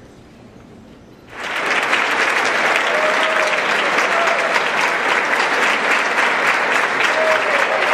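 Large audience applauding: the clapping starts suddenly a little over a second in and stays loud and dense.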